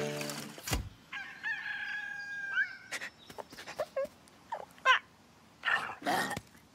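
A sharp hit, then a cartoon bird's drawn-out, crowing-like squawk ending in a rising glide, followed by a string of short clucks, chirps and clicks.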